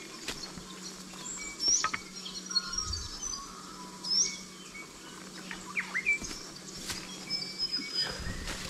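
Small birds calling all around: short chirps and several quick sliding whistles, the loudest near 2, 4 and 6 seconds in. Under them, scattered twig snaps and leaf crackles from someone pushing through dense scrub.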